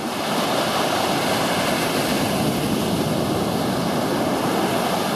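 Surf washing onto the beach: a steady rush of breaking water.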